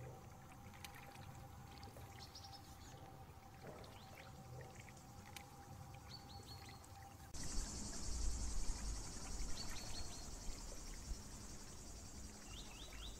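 Faint garden ambience: small birds chirping in short quick runs of three or four notes. About seven seconds in, the background changes abruptly and a steady high buzz of summer insects comes in over a low rumble.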